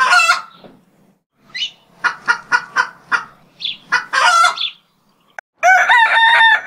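Chickens clucking in short, quick calls, then a rooster crowing about five and a half seconds in, one long call held at a steady pitch.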